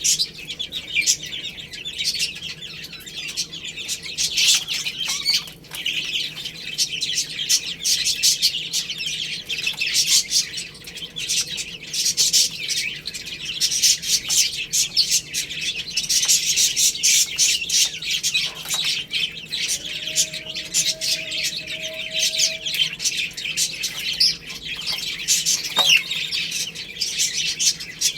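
A group of baby chicks peeping together in a dense, continuous chatter of high-pitched chirps, with a brief lower-pitched call about two-thirds of the way through.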